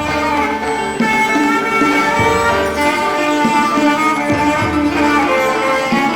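Background music played by string instruments, with sustained notes.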